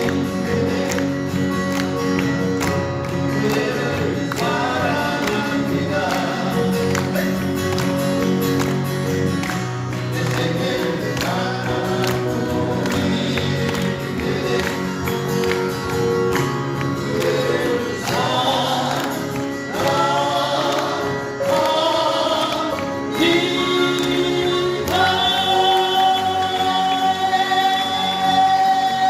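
Male vocal quartet singing in close harmony with acoustic guitar accompaniment, with a long held note over the last few seconds.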